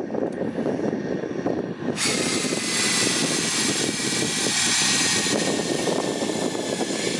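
Cordless drill boring a hollow forage sampling probe, with an extension fitted, down into packed silage. About two seconds in, a high motor whine starts up over a rushing noise, its pitch slowly sagging as the probe goes deeper: the drill is working against the extra friction of the longer probe.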